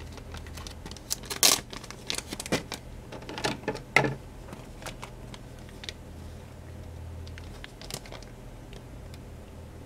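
Clear plastic packaging crinkling and crackling as it is handled, with a dense run of crackles in the first four seconds and only a few scattered ones after.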